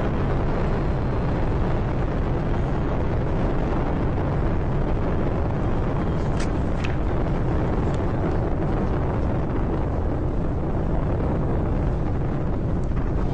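Space Shuttle Atlantis's twin solid rocket boosters and three main engines during ascent: a steady, unbroken rumble of rocket exhaust.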